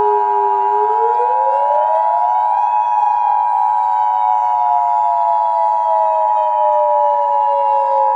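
Emergency alert two-tone attention signal holding steady, overlaid with a civil defense siren that winds up over about two seconds and then slowly winds down.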